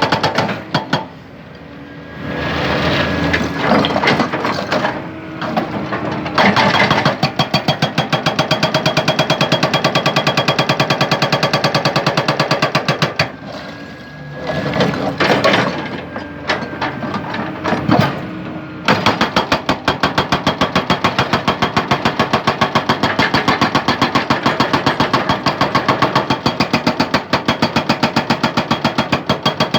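Hydraulic rock breaker on a Hyundai excavator hammering hard rock in rapid, even blows. It runs in two long stretches, and in the pauses between them the excavator's diesel engine is heard working on its own.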